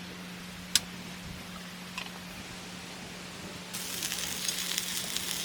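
A sharp click about a second in. Then, near the end, food starts sizzling in a hot pan, a sudden crackling hiss full of small pops.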